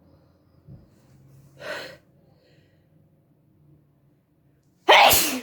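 A woman's short breath, then near the end one loud, sudden sneeze with a falling voiced tail, brought on by sniffed black pepper.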